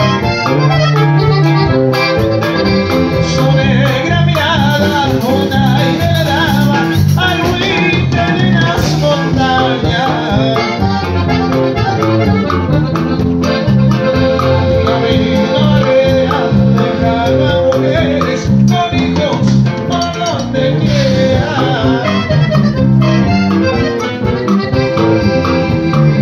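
Accordion-led Mexican regional music with guitar and a steady rhythm, with singing at times.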